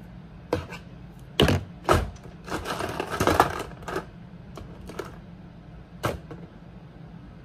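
Irregular sharp clicks and clattering knocks from hair clips and a comb being handled while hair is sectioned and clipped back, with a denser patch of clatter in the middle, over a low steady hum.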